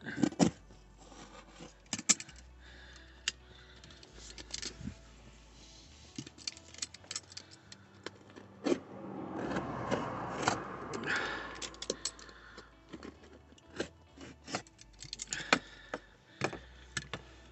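Utility knife slicing and scraping through a vehicle's floor carpet: many short, sharp clicks and scrapes, with a longer, louder stretch of cutting in the middle.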